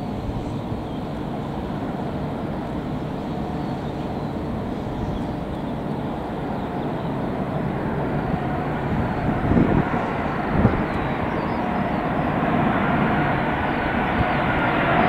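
Engine noise from an Airbus A380-841 on final approach, its four Rolls-Royce Trent 970 engines making a steady jet rumble that grows louder as the airliner closes in. Two brief bumps come about ten seconds in.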